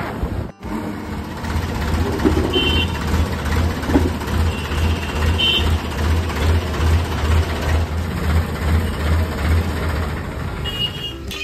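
Tractor's diesel engine running with a steady, pulsing low throb, broken by a short cut about half a second in. Three short high-pitched tones sound over it.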